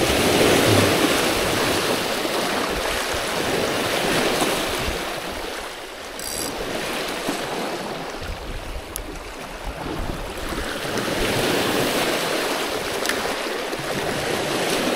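Small sea waves washing and splashing against the rocks of a seawall, swelling and easing every few seconds.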